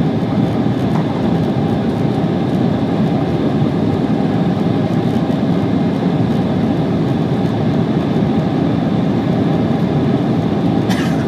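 Steady cabin noise of an Embraer 190 airliner in flight, heard from a passenger seat: the constant low rumble of its turbofan engines and the airflow over the fuselage.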